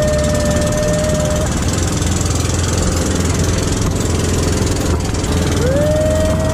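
Outrigger pump boat's engine running steadily under way, a loud low rumble. A high steady whine drops out about a second and a half in and comes back near the end with a quick rise in pitch.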